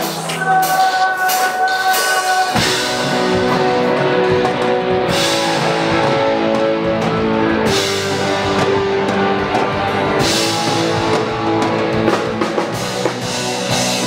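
Rock music with a drum kit and guitars, the band changing to a new section about two and a half seconds in.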